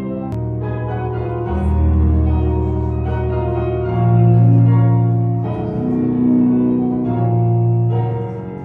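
Background music of slow, held organ chords that change every second or two.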